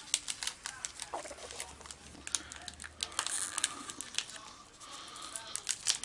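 Foil wrapper of a Pokémon booster pack crinkling and rustling as it is handled, with many scattered sharp crackles.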